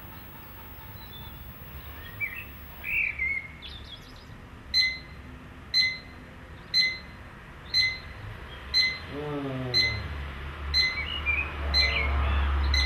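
Bedside digital alarm clock beeping about once a second, starting about five seconds in. Birds chirp before the alarm starts and again near the end.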